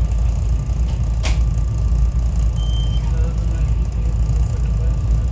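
Steady low rumble of a commuter train running, heard from inside the passenger car, with one sharp click a little over a second in.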